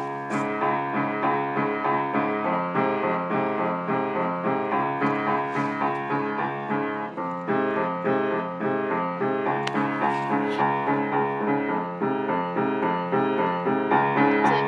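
A piano keyboard playing a tune with evenly paced notes, low bass notes sounding under higher ones.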